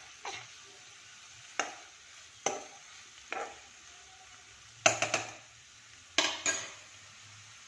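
A metal spoon scrapes and knocks against a non-stick frying pan as sliced mushrooms and onions are stirred, a stroke every second or so. The loudest strokes are a quick cluster about five seconds in and another just after six seconds.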